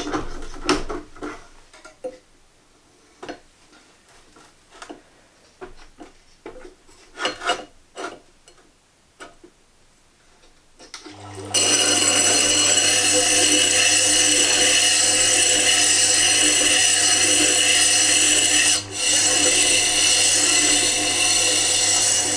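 Light clicks and knocks of a chisel being handled and set in the jig. About eleven seconds in, the Tormek T8 sharpener starts and runs steadily, grinding a dull old chisel's bevel on the coarse diamond wheel, with one brief dip in the sound near the end.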